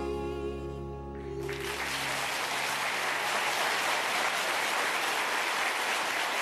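The song's final held chord fades out, and about a second and a half in a studio audience breaks into steady, sustained applause.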